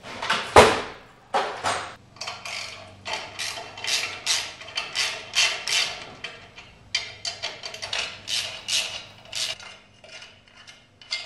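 A socket ratchet clicking in repeated short runs as the long muffler bolts are backed out of a small lawnmower engine, with a louder metallic knock about half a second in.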